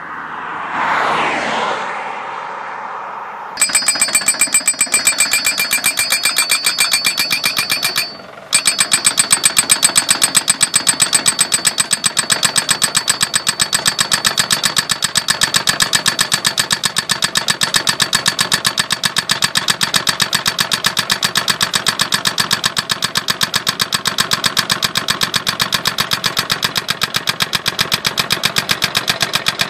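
Truck-mounted post-driving hammer pounding a roadside post into the ground: rapid, evenly spaced metallic blows, many a second, with a ringing tone. It starts a few seconds in after a brief falling whoosh and stops briefly about eight seconds in before hammering on.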